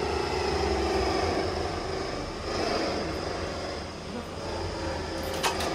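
Steady low engine-like drone with a faint hum, easing off slightly past the middle.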